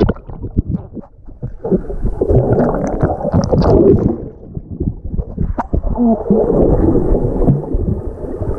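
Muffled underwater pool sound picked up by a submerged waterproof camera: bubbling and gurgling water stirred by a swimmer, with scattered knocks and clicks.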